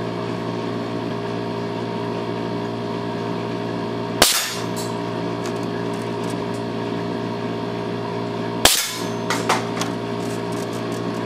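Two shots from a homemade .25-calibre BB gun powered by 120 psi shop air, about four and a half seconds apart, each a sharp crack. After the second, a few light knocks as the hit pop can topples. A steady hum runs underneath.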